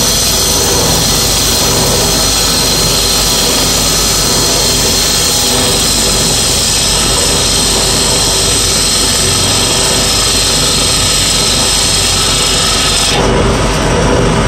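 Wood lathe running while a handheld turning chisel cuts the inside of a spinning wooden cone: a steady motor hum under the continuous hiss and scrape of the cut.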